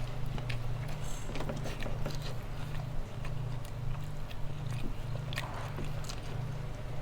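A person chewing food close to the microphone, with small wet mouth clicks scattered through, over a steady low hum.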